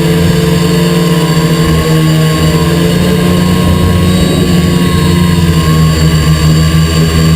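XP2 quadcopter's electric motors and propellers running steadily, heard loud and close from the GoPro mounted on the quadcopter itself, with a slight wavering in pitch.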